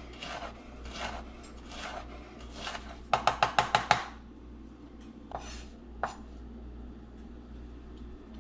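Kitchen knife chopping on a cutting board: evenly spaced cuts for the first three seconds, then a quick run of about seven fast chops, then two single cuts.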